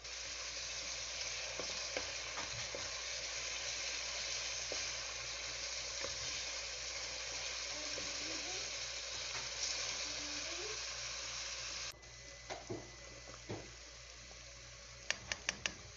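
Chopped onions sizzling in hot oil in a nonstick wok, stirred with a spatula. About twelve seconds in the sizzle suddenly drops to a quieter level, with a few knocks of the spatula on the pan. Near the end there is a quick run of four clicks.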